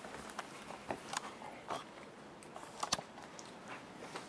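A few faint, scattered clicks and knocks, the sharpest about three seconds in: handling and movement noise from a person getting up and moving about.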